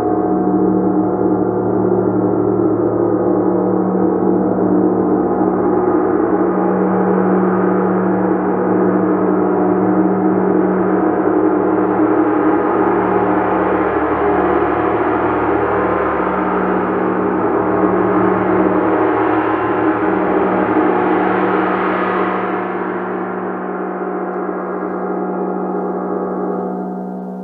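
A gong played continuously, building a dense, sustained wash of many overlapping ringing tones. It begins to die away about four seconds before the end.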